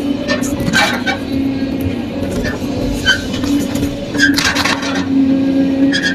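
Kobelco SK200 excavator's diesel engine and hydraulics running under load, heard from inside the cab, the engine note swelling and easing as the arm works. There are clattering knocks as the bucket dumps soil into a truck bed and then bites into the dirt pile.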